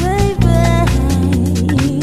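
Background music with a steady beat: sustained bass notes, a sliding melody line and regular drum hits, in a soul or funk style.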